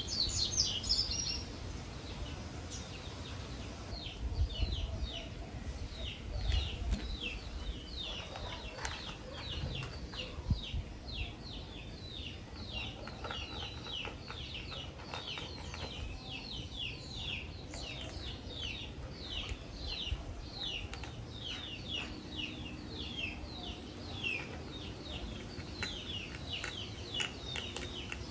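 Birds calling, a steady run of short falling chirps at about three a second, over a low rumble.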